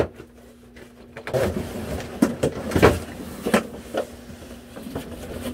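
Stapled cardboard shipping box being pulled open and a hard-shell guitar case slid out of it: a sharp snap at the start, then from about a second in, cardboard scraping and rustling with several knocks.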